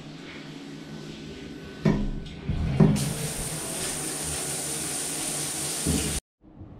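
Overhead rain shower head turned on: a couple of knocks, then water spraying steadily from about three seconds in, cutting off suddenly near the end.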